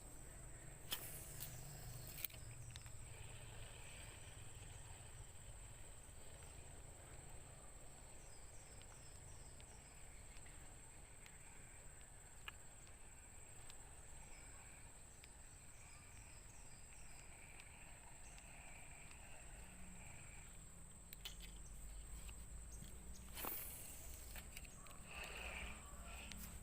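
Faint outdoor ambience with a steady high-pitched insect drone, a couple of sharp clicks a second or two in, and a brief rush of noise near the end.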